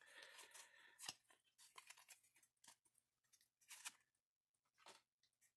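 Faint handling of a stack of freshly opened Pokémon trading cards: a soft rustle, then a few light clicks and slides of card against card as they are turned over and moved to the back of the stack.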